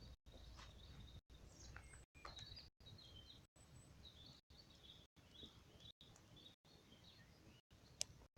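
Faint, quiet outdoor ambience with small birds chirping on and off, and a single sharp click or crack about eight seconds in.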